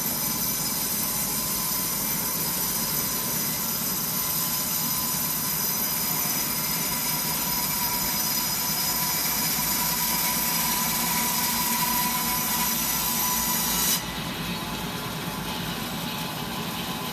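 Wood sawmill machine running with a steady mechanical whine and several held tones. About fourteen seconds in, the high-pitched part cuts off suddenly and the sound turns quieter.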